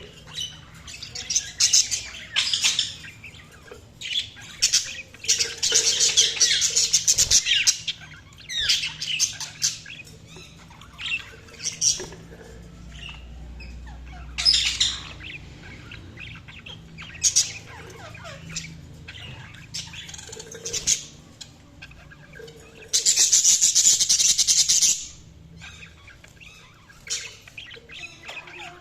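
Budgerigars chirping and chattering in irregular bouts of fast, high calls, with harsher squawks, including a long loud one near the end.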